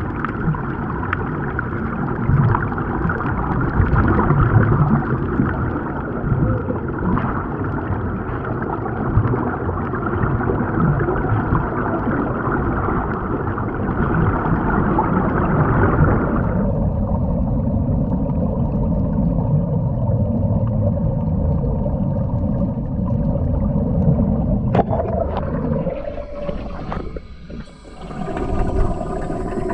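Continuous underwater bubbling and gurgling of air streaming out of a surface-fed sea-walking helmet. The sound changes abruptly about halfway through, dips briefly near the end, then becomes the brighter bubbling heard from inside the helmet.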